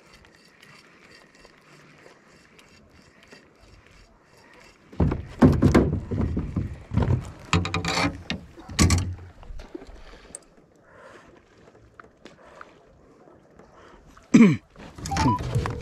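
Knocks and thumps of fishing gear being handled against a small fishing boat's hull and deck: a cluster of loud bangs about five seconds in lasting some four seconds, then one sharp knock near the end.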